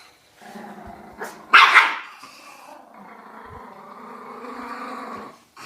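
A dog grunting and growling in pig-like noises, with a loud, short outburst about one and a half seconds in, then a long steady rumbling grunt.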